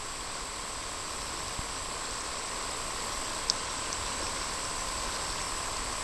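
River water running over a shallow riffle: a steady, even rushing hiss, with a thin, steady high tone over it.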